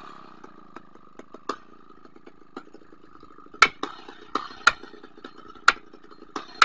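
Chainsaw idling quietly after a cut, with irregular sharp cracks and snaps, the loudest a few seconds in.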